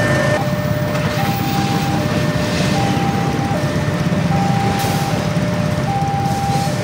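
Railway level-crossing warning alarm sounding, two electronic tones alternating high and low about every three-quarters of a second, the signal that a train is passing and the crossing is closed. A steady low rumble of the passing train and idling motorcycles runs underneath.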